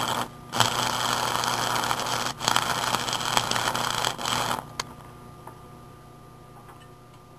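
Stick-welding arc from a homemade microwave-oven-transformer welder burning a 6013 rod on mild steel, with a steady crackle and hiss. The arc drops out briefly twice and restrikes, then breaks off a little past halfway. After that only a low hum and faint ticks remain.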